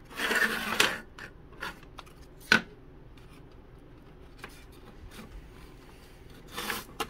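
Thin laser-cut wooden kit parts of a model boat frame scraping and clicking as they are handled and pressed together: a rubbing scrape in the first second, one sharp click about two and a half seconds in, scattered light ticks, and another short scrape near the end.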